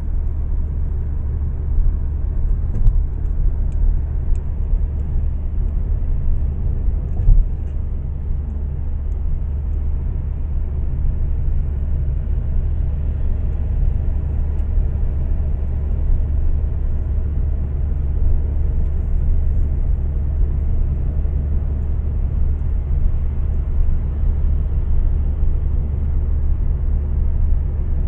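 Steady low rumble of road and tyre noise heard inside a moving car's cabin at highway speed, with a few brief bumps in the first several seconds.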